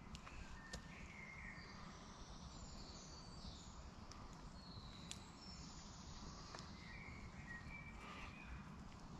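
Faint woodland ambience: birds singing intermittently over a steady low rumble, with a few soft clicks.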